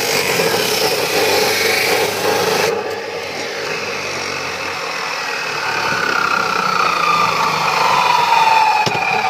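Abrasive chop saw grinding through the steel of a homemade firearm, a harsh rasping that stops about two and a half seconds in. The disc then spins freely, and its whine falls slowly in pitch as the saw winds down.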